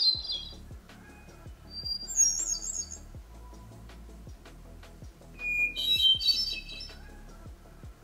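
Hermit thrush singing: separate song phrases a few seconds apart, each a held clear note followed by a quick fluty warble, each phrase pitched differently from the last.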